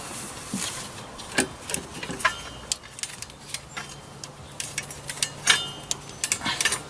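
Metal hand tools clicking and clinking against engine parts while loosening a bracket bolt: irregular sharp taps, a few with a short metallic ring.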